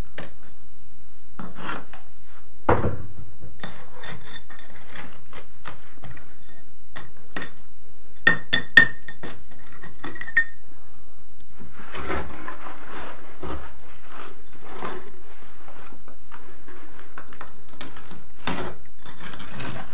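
A metal bar knocking, prying and scraping at broken concrete floor screed, with chunks of concrete and rubble clinking and shifting. A sharper metallic ring stands out about eight to ten seconds in, and rubble slides about eighteen seconds in as a piece of screed gives way over a hollow.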